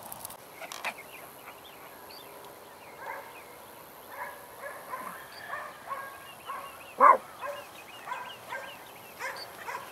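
Short animal calls at irregular intervals, with one much louder call about seven seconds in.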